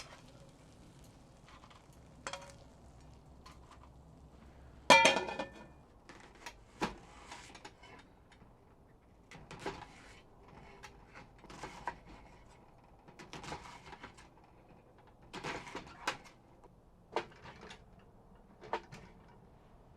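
Scattered clinks and knocks of cookware and utensils being handled while cooking, with the loudest knock about five seconds in.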